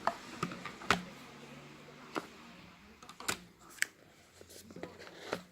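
Irregular sharp clicks and taps of a smartphone box and its contents being handled, about eight in all, the loudest near the start and about a second in.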